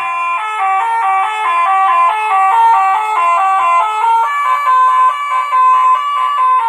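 Telolet bus horn playing a tune: a quick run of stepped notes, two or three pitches sounding together and changing several times a second.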